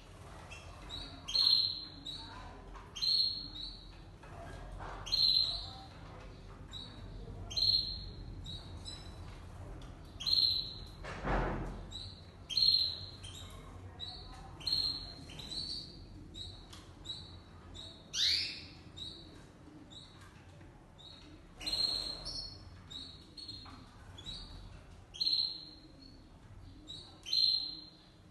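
Domestic canaries giving short, sharp chirping calls, one every couple of seconds, each falling quickly in pitch. There is a brief rustle near the middle.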